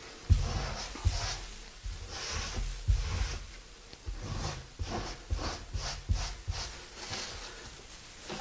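Putty knife scraping wet grout across ceramic tile, a dozen or so short strokes back and forth, some with a dull knock, as the excess is worked into the joints and scraped off.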